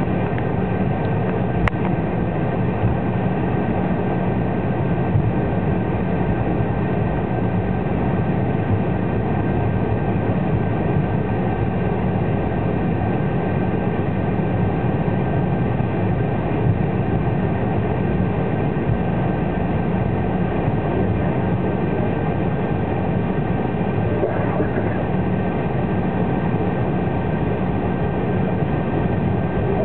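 Cabin noise of an Embraer 190 jet taxiing: a steady rumble from its two turbofan engines at taxi power, with a constant high whine on top. It is heard from inside the cabin at a forward window seat. There is one brief click about two seconds in.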